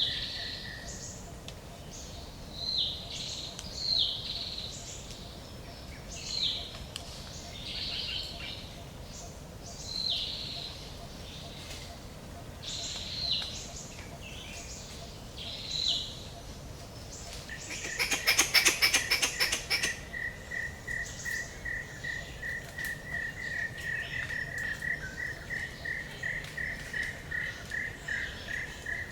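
Forest ambience: a bird repeats a short, high, falling call every couple of seconds. About two-thirds of the way in comes a rapid two-second rattle of knocks, the loudest sound here. After it a fast, even pulsing note starts and runs on.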